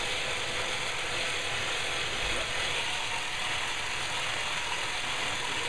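Steady mechanical rattling whir of a motorized chiropractic therapy device running without a break.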